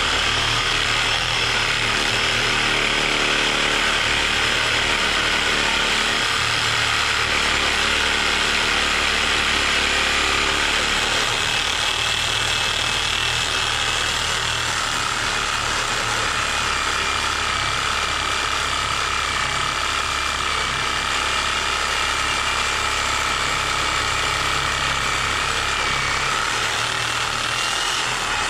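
Reciprocating saw (Sawzall) with a Diablo blade running continuously, cutting through the rusted-on steel shaft of a condenser fan motor. Its note shifts a little about halfway through as the cut goes on.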